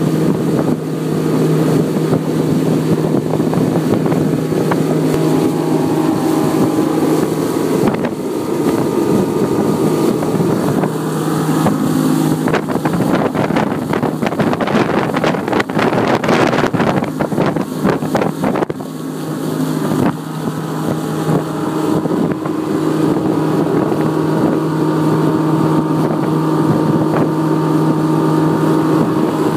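Outboard motor running steadily under load, pushing a barge along at a constant speed, with a steady engine hum. For several seconds around the middle, rough wind noise on the microphone rises and partly covers the engine.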